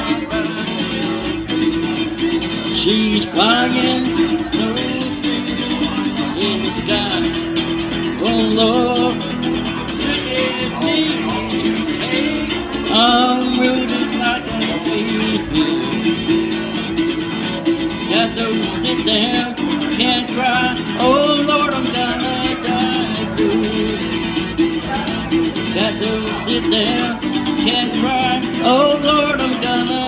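Acoustic guitar strummed in a steady, continuous rhythm through an instrumental passage of a folk song.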